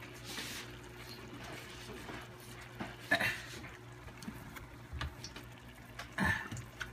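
Ground pork, tomato and onion in chicken stock simmering in a pan over a steady low hum. Three short noisy bursts come near the start, about three seconds in and about six seconds in.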